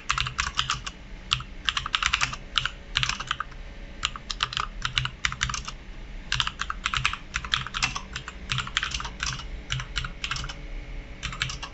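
Typing on a Gigabyte Aorus K7 mechanical keyboard with Cherry MX Silent Red linear switches. Quick runs of soft keystrokes with no switch click, the keys knocking against the plate as they bottom out, broken by a few short pauses.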